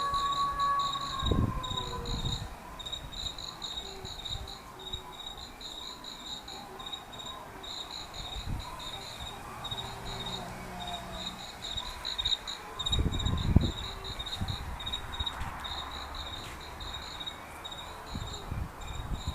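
Crickets chirping in rapid, regular pulses, a looped night-time sound effect played through the display's speakers. Low thuds come about a second in and again around 13 to 14 seconds.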